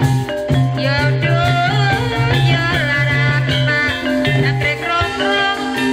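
Live ebeg dance accompaniment: gamelan-style band music with a low steady bass tone and drums, and a high, wavering melody line that comes in about a second in.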